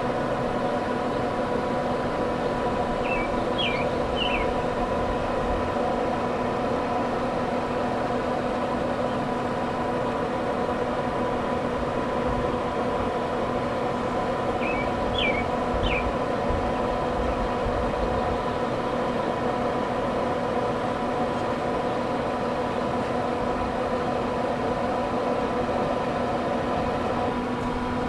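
Steady mechanical hum at a fixed pitch over a low rushing noise, with a few short high chirps a few seconds in and again about halfway through.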